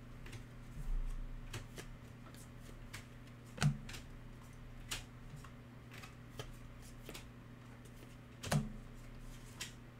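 Glossy trading cards being flipped through by hand: scattered light clicks and slides of card against card, with two louder snaps about three and a half and eight and a half seconds in. A faint steady low hum runs underneath.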